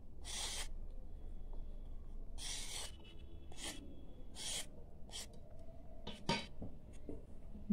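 Vegetable peeler blade scraping strips of peel off a raw carrot: about six short strokes, each under half a second, at uneven intervals.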